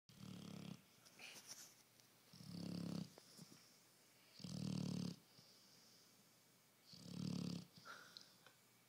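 Pit bull snoring in her sleep: four loud, low, pitched snores, each under a second long and coming about every two and a half seconds, with softer hissing breaths between them.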